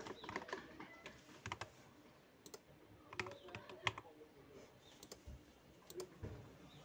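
Computer keyboard typing: scattered single keystrokes and short runs, with a few clicks, faint and spaced a second or so apart.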